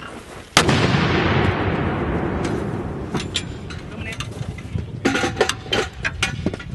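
A 120mm mortar firing once about half a second in: a sharp blast followed by a long rolling rumble that fades over a few seconds. Several metallic clinks and knocks follow near the end.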